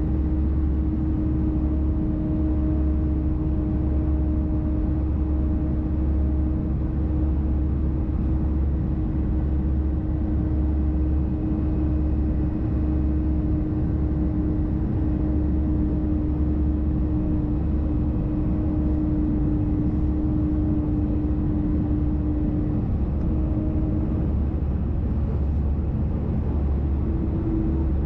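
Airbus A320-214 heard from the cabin in the climb: a steady engine rumble with a constant howling tone from the left CFM56 engine. The tone sags slightly in pitch about three-quarters of the way through, then comes back up.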